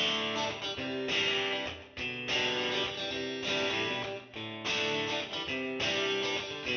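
Background music: guitar playing chords, with a new chord struck every half second to a second.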